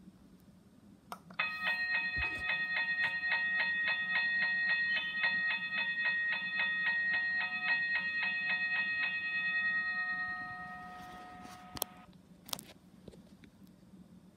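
Toy railroad crossing gate's warning bell dinging in a fast, even rhythm, starting about a second in, stopping around nine seconds in and ringing out. Two sharp clicks follow near the end.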